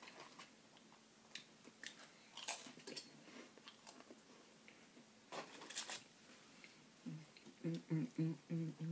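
Close-up eating sounds: chewing and crisp crunches of saltine crackers with chili, with two louder crunchy bites about a third and two thirds of the way in. Near the end comes a string of short hummed "mm" sounds of enjoyment.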